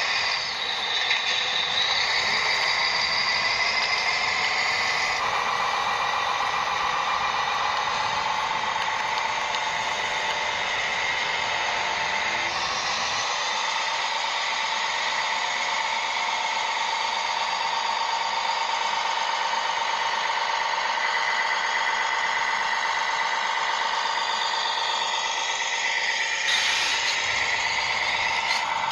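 Small electric motors and gearboxes of remote-controlled model construction machines whining steadily. The pitch shifts a few times as the machines change what they are doing.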